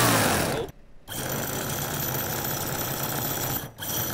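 Toyan FS-V800 miniature four-stroke V8 model engine running steadily on glow fuel, with two brief breaks in the sound, one about a second in and one near the end.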